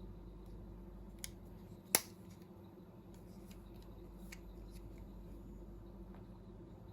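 A sharp click about two seconds in, a smaller one just before it and a few faint ticks later, over a steady low hum: clicks from handling a Nokia 6290 folding phone.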